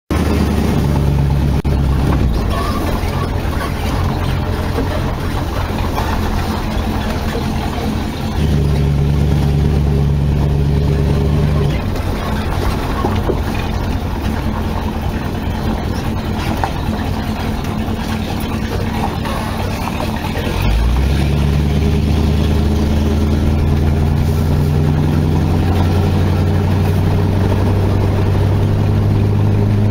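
Dodge Charger engine running as the car drives along, with a steady low note. The note steps up and gets louder about eight seconds in, drops back at about twelve seconds, and rises again about twenty-one seconds in as the car picks up speed.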